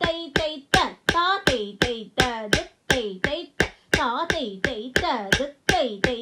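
Bharatanatyam rhythm recitation: a voice chanting fast 'thei' syllables, each marked by a sharp wooden stick strike (thattukazhi on a block), about three beats a second in an even pulse.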